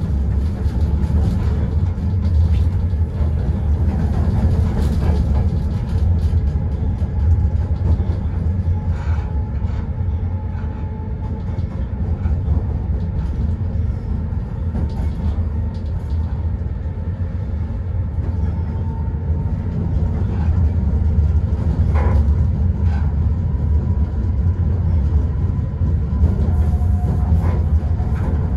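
Newag Dragon locomotive running, heard from the driver's cab: a steady low rumble with faint whining tones and a few short clicks.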